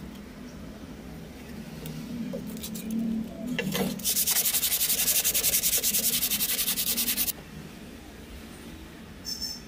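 Sandpaper rubbed by hand along the edge of a wooden board in fast back-and-forth strokes, about six a second, starting about four seconds in and stopping abruptly some three seconds later.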